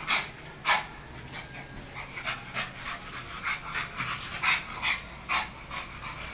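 Beagle panting: quick, short breaths in an uneven rhythm.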